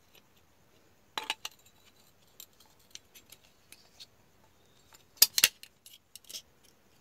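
Clicks and light knocks of metal and plastic parts as an angle grinder's armature, with its fan and pinion gear, is worked by hand into the aluminium gear housing, not yet seated properly. The knocks come in two small clusters, about a second in and near the end, with scattered faint ticks between.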